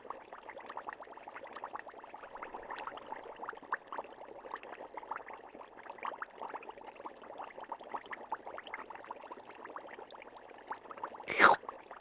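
Underwater fish-tank ambience for a cartoon: a steady bed of small bubbling pops and clicks, with one short, louder sound effect near the end.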